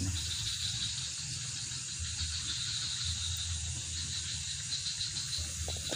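Night insect chorus, crickets among them, trilling steadily in high, finely pulsing layers over a low rumble.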